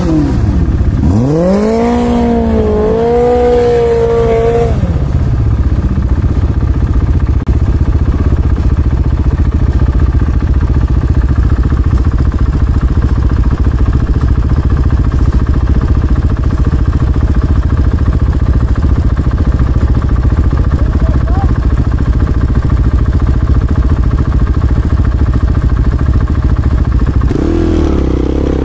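Dirt bike engine running loud. The revs rise and fall a few times in the first few seconds, then hold steady for most of the stretch, and change again near the end.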